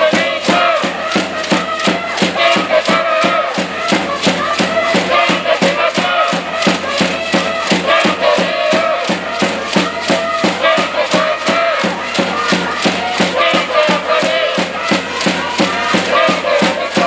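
Cheering section of spectators chanting together in unison over a fast, steady beat of about four strikes a second.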